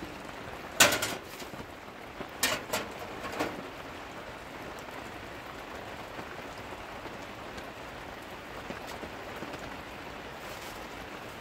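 Steady rain falling on canvas tent fabric, heard from inside the tent. A few sharp knocks break through: one about a second in and three more between about two and a half and three and a half seconds in.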